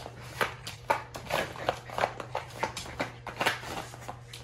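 A West Highland white terrier's paws and claws scratching and pressing at a vinyl inflatable water play mat: short, irregular scratchy crinkles, two or three a second.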